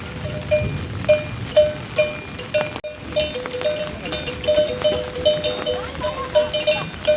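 Metal livestock bells clanking as a herd moves, with a ringing note struck about twice a second. A second, lower bell joins about three seconds in.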